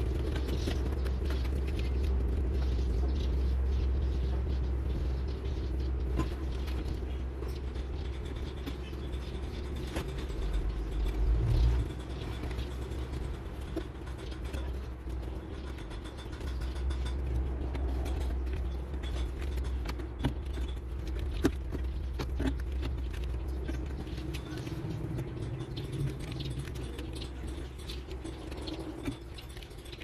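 Wires and connectors of a truck's dashboard wiring harness being handled, giving scattered light clicks and rustles. Under them runs a steady low rumble, which swells briefly about twelve seconds in.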